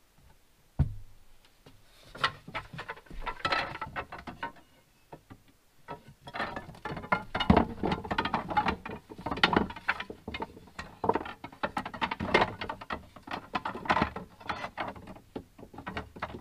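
Wooden bed slats clattering and knocking as a slatted pull-out campervan bed frame is folded up and stowed, with a single thump about a second in followed by many quick irregular clacks.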